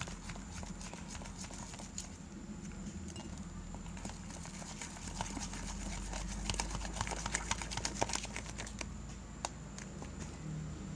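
Slime stirred in a container as it thickens after activator is added: a stream of quick sticky clicks and small pops, busiest in the middle of the stretch.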